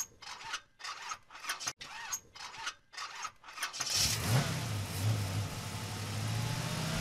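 Car engine cranked in a string of short bursts, catching about four seconds in with a quick rev, then running at a steady idle.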